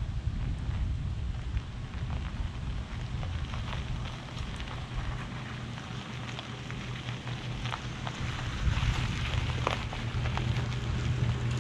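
Ford F-150 FX4 pickup engine running as the truck rolls slowly over gravel and pulls up close. Its steady low hum grows louder over the last few seconds, over rain and scattered light clicks.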